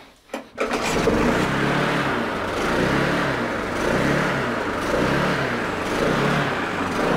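Petrol lawnmower engine pull-started, catching within the first second and then running with a regular surge and dip in speed about once a second. This is hunting, which the owner puts down to the carburettor needing a new gasket and diaphragm.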